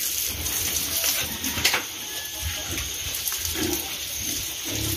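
Garden hose with a spray nozzle jetting water onto pigs and the wet concrete pen floor: a steady hiss and splatter of spray.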